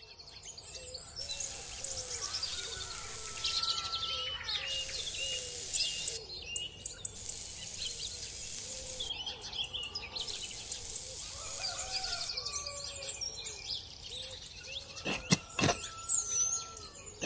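Birds chirping throughout, over four separate scratchy strokes of a thin wooden stick dragged through sand, each lasting about two seconds. Near the end come a few sharp clicks as tweezers set small seedlings into the sand.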